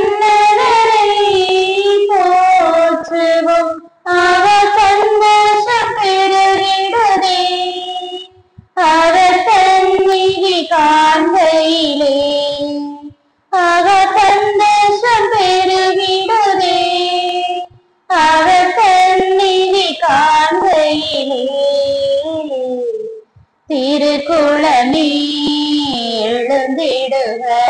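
Entrance hymn of a Tamil Catholic Mass sung by high voices, in phrases of about four seconds with short breaks between them.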